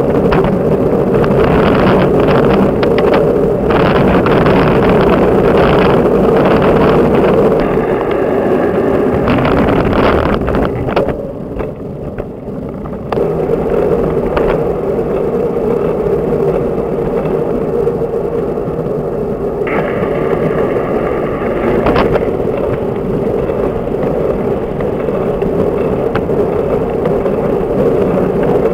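Steady wind and road noise from a road bike in motion, picked up by a camera mounted on the bike, with occasional knocks from bumps in the path. It drops back briefly for about two seconds partway through.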